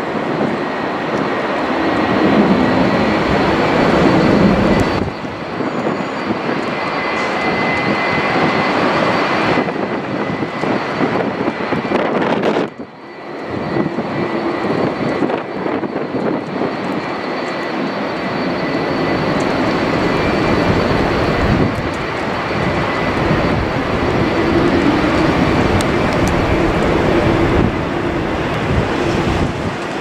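Airbus A320 airliner on final approach, its turbofan engines giving a loud, steady rushing noise with a faint high whine. The sound cuts off abruptly a few times where separate clips are joined.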